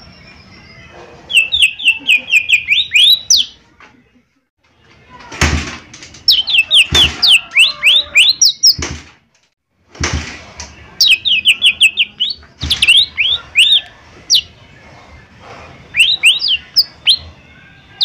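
Cucak ijo mini (lesser green leafbird) singing in gacor form: quick strings of sharp, falling whistled notes in four bursts separated by short pauses. A few sharp knocks come between the phrases.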